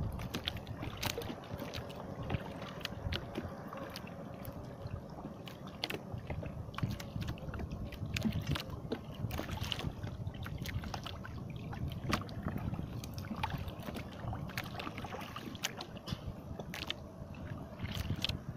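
Sea water lapping against a small wooden jukung boat, a steady low rush with many small scattered clicks and knocks throughout.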